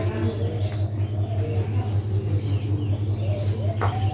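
Short bird calls repeating throughout over a steady low hum.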